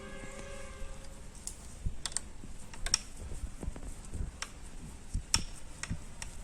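Irregular light clicks and taps of small tools and parts being handled, with a few sharper clicks about two, three, four and five seconds in.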